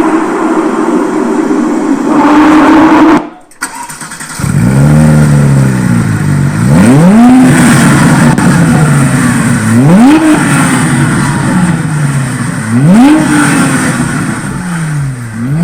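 Car engine revved hard, played loud: a held, slightly climbing note, a brief break about three seconds in, then three sharp throttle blips about three seconds apart, the pitch shooting up and sinking back slowly after each.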